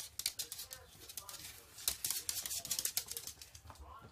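A cat's claws scrabbling and scratching at the carpet strip under a door: a quick run of short, scratchy rasps and clicks, busiest around the middle.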